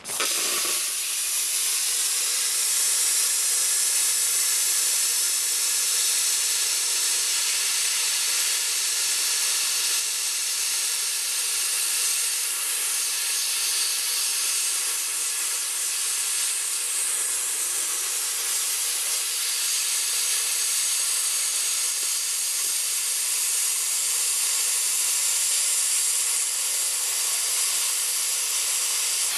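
Eastwood VersaCut plasma cutter cutting through a thick steel beam at full power: a steady, loud hiss of the compressed-air arc blowing molten metal through the cut. It starts abruptly as the torch fires and holds level throughout.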